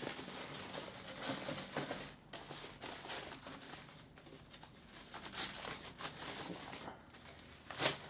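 Thin plastic bag crinkling and rustling as it is pulled off by hand, in uneven handfuls, with a couple of sharper crackles about five seconds in and near the end.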